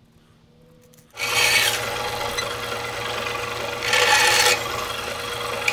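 Bandsaw running steadily and cutting the ends off wooden wagon-wheel spokes. The saw comes in loud about a second in, after a short stretch of low hum. There are two louder, rasping bursts as the blade goes through a spoke: one about a second in and one about four seconds in.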